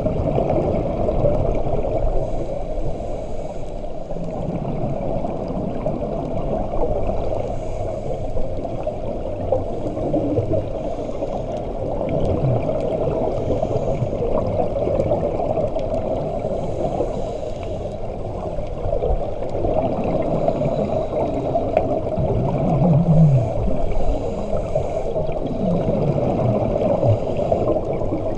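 Steady muffled underwater gurgling and rumble, with bubbles from the scuba divers' exhaled air.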